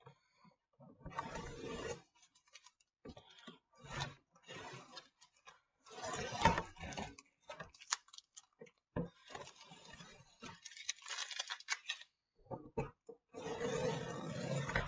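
Masking tape being peeled off the edges of a watercolour sheet, in several separate pulls of a second or two each with short pauses between.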